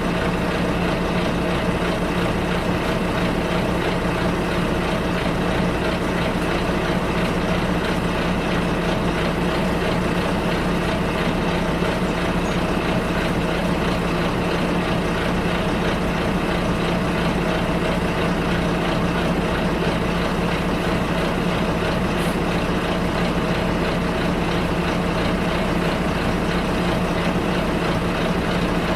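Bus interior: the engine hums steadily with a constant low drone and a noisy running rumble, unchanging throughout.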